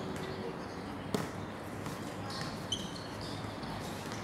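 A basketball bouncing on a hard court: one sharp thud about a second in and a lighter one later, over a background of distant voices.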